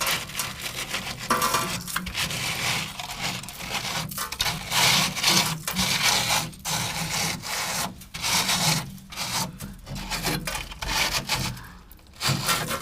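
Rusted steel bodywork of a 1970 VW bus sill being cut away: a rough rasping, sawing noise in uneven strokes about a second long, broken by brief pauses.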